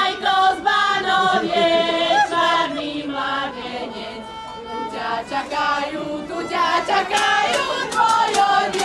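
A group of men and women singing a song together in chorus.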